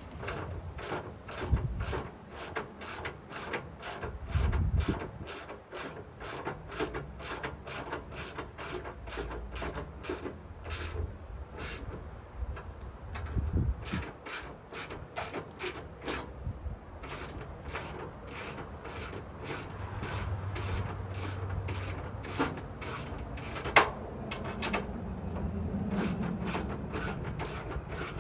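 Hand ratchet wrench clicking steadily, about two or three clicks a second, as bolts are run in to mount a hose and wand holder, with a couple of short pauses.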